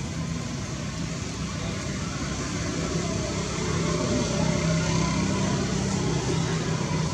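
Steady low mechanical hum with a hiss over it, growing a little louder about three seconds in.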